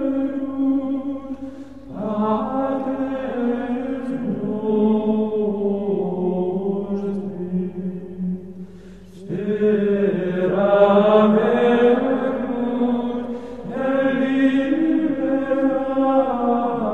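Background music of slow vocal chant. Voices sing long, held phrases that move slowly in pitch, with short breaks about 2, 9 and 13.5 seconds in.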